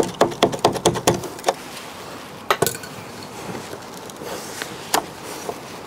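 Window glass and metal door parts of an old Land Rover Defender rear door clinking and knocking as the glass and its felt trim are worked loose by hand. There is a quick run of knocks in the first second, then a few scattered clicks.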